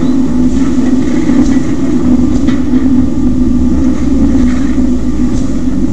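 A coal conveyor loading a steam locomotive's coal bunker, its machinery running with a steady hum and a few faint knocks of coal now and then.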